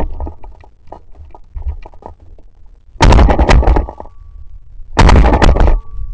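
Two shotgun shots about two seconds apart, each very loud with a sudden onset and a short rolling tail, preceded by a few light knocks.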